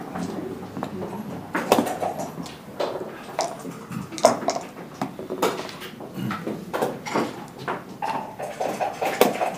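Scattered clicks and knocks of backgammon checkers being moved and set down on the board.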